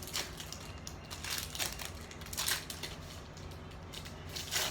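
Packaging rustling and crinkling in several short bursts as a small makeup brush is pulled out of its wrapper.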